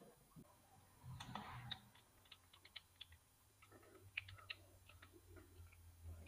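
Faint, quick clicks and ticks of small screws being tightened by hand, fastening the mass airflow sensor to the aluminium tube of a cold air intake, over a faint low hum.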